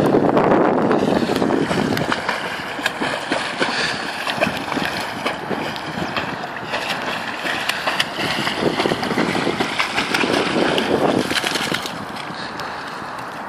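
Wind buffeting the microphone over splashing water as an English springer spaniel paddles. The sound grows quieter about twelve seconds in.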